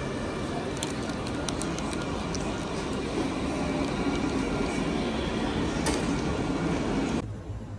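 Steady rumbling noise, like a moving vehicle, with a few sharp clicks about a second in and again near the end; it cuts off abruptly just before the end.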